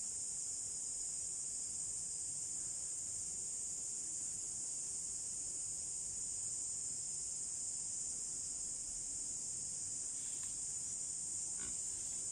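Steady, unbroken high-pitched chorus of insects, with a faint tick or two near the end.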